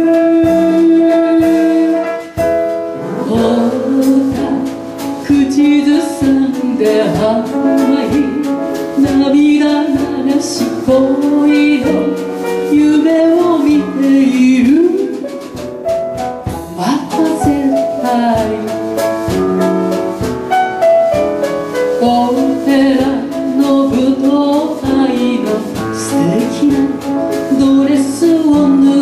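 A woman singing a Japanese-language chanson into a microphone, accompanied by piano.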